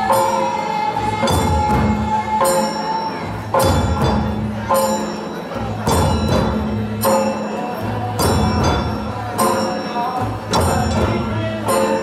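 Santal folk dance music: shoulder-slung barrel hand drums beaten together, with a strong accented stroke about once a second, under a held melody line.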